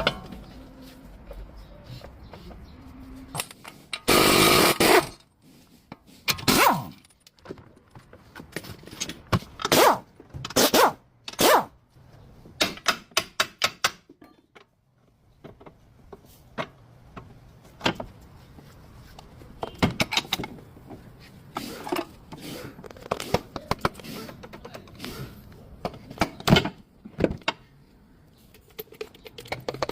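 Irregular knocks, thuds and scrapes of hand tools on metal, with a few short rattling bursts, from work on a car's front drive shaft.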